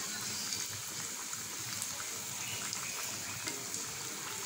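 Chicken-and-potato chops deep-frying in hot oil in a wok: a steady sizzle with small scattered crackles.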